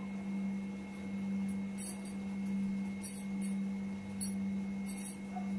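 A steady low hum, with a handful of faint, brief crackles from crab curry simmering in a kadai on a gas burner.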